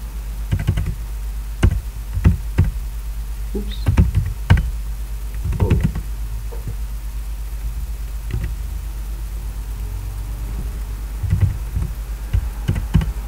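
Computer keyboard keystrokes and mouse clicks, a dozen or so sharp taps scattered irregularly, some in quick little clusters, over a steady low electrical hum.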